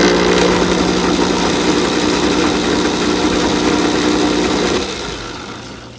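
Homemade lathe's electric motor switched on and running at a steady speed, a constant hum under a loud whir, then winding down about five seconds in.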